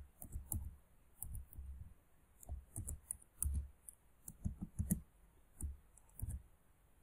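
Typing on a computer keyboard: irregular keystrokes, each a dull thud with a sharp click, stopping shortly before the end.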